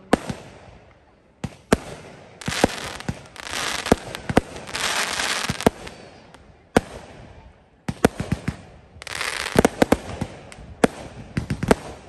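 Aerial fireworks going off: a run of sharp bangs as shells burst, some in quick pairs, with stretches of hissing crackle between them.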